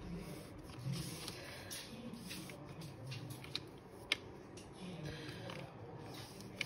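Faint scratching of a felt-tip marker drawing lines on creased paper, with light paper rustling and a few sharp little clicks.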